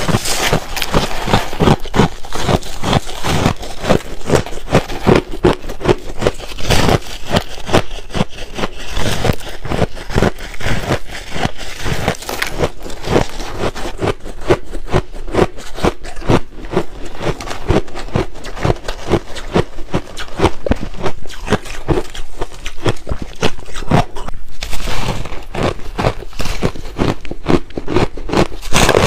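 Soft shaved ice and freezer frost being bitten and chewed: a dense, continuous run of crisp crunches.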